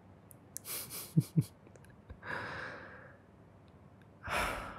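A man breathing close to the microphone. About a second in there are quick breaths with two short soft hums and mouth clicks, a long sigh-like exhale follows, and another breath comes near the end.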